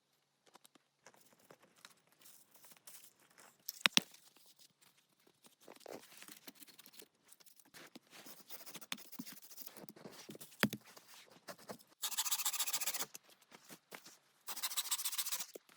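Scattered knocks and scrapes of hands-on work, with one sharp knock about four seconds in. Near the end come two rapid rasping strokes of about a second each.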